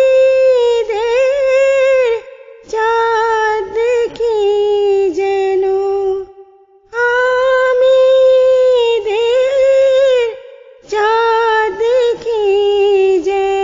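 A woman singing a Bengali hamd-naat, an Islamic devotional song, in long held phrases of about three and a half seconds with gliding ornaments. There are short breath pauses between the phrases, about two, six and ten and a half seconds in.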